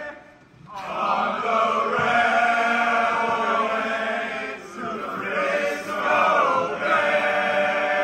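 Men's choir singing a railroad work song in chant-like full harmony, breaking off briefly just under a second in and then coming back in with held chords.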